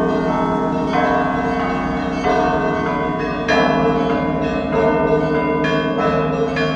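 Russian Orthodox monastery bells ringing in a peal. Several bells of different pitches are struck in quick, overlapping succession every half second to a second, each ringing on over the steady hum of the larger bells.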